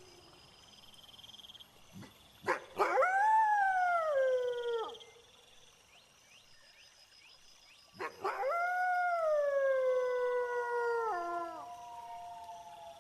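A wolf howling twice, each howl rising quickly then sliding slowly down in pitch over two to three seconds, over crickets chirping steadily.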